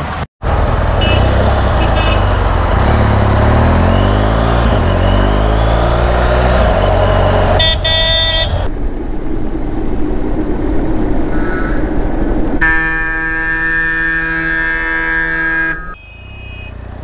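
BMW R1200 GS Adventure's flat-twin engine running while riding in city traffic, its pitch rising as the bike accelerates. Vehicle horns sound in the traffic: a short honk just before the ninth second and a long, steady honk lasting about three seconds near the end.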